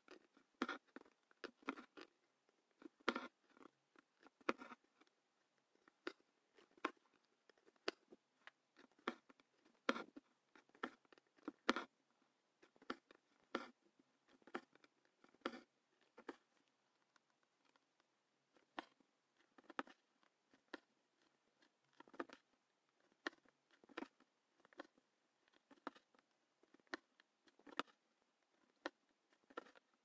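Hand-embroidery needle and thread being worked through fabric in stem stitch: a quiet run of irregular soft pops and scratches, a few each second, as the needle pierces the cloth and the thread is drawn through.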